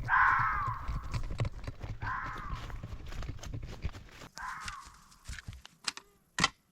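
An animal calling three times, about two seconds apart, each call short and rising then falling in pitch, over a low rumble; a few sharp clicks follow near the end.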